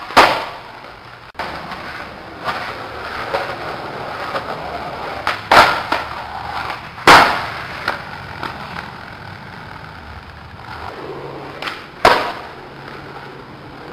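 Skateboard wheels rolling on concrete, broken by loud sharp cracks of the board popping and landing: one near the start, two about a second and a half apart in the middle, and one near the end, with a few lighter knocks between.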